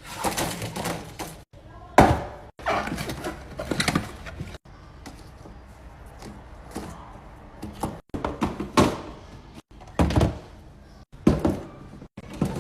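Handling noise of containers and food items being set down and moved about, a series of knocks and thunks of varying loudness, broken by abrupt cuts.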